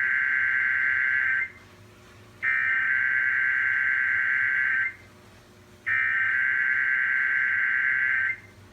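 Emergency Alert System SAME header: loud, screechy digital data tones in three identical bursts about two and a half seconds long, a second apart, the first already under way. It is the coded header that opens an EAS required monthly test.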